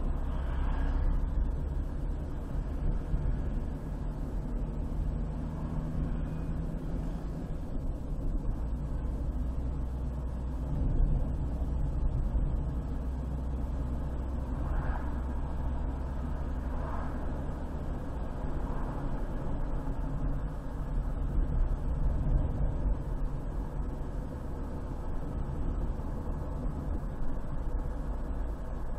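Car driving along a highway: a steady low rumble of engine and tyre noise, with a few faint brief tones about halfway through.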